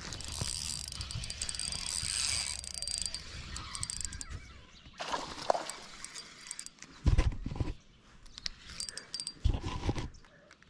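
Spinning reel being cranked, a dense run of fine gear clicks, then two heavy dull thumps about seven and nine and a half seconds in.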